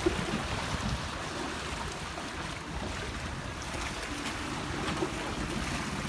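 Speedboat outboard motors running as the boats pull away, a faint steady engine hum that becomes clearer about four seconds in, over water lapping and wind on the microphone.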